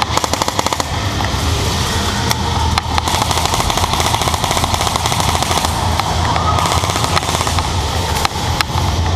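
Airsoft guns firing: a rapid full-auto burst of sharp clicks in about the first second, then scattered single shots, over a steady background din.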